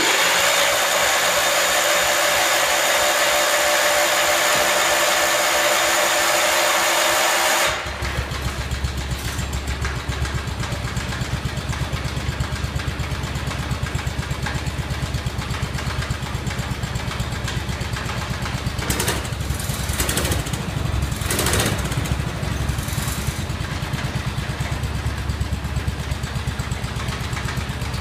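Kohler K341 16 hp single-cylinder engine in a garden tractor, running fast at first, then dropping abruptly about eight seconds in to a steady idle with an even, pulsing beat.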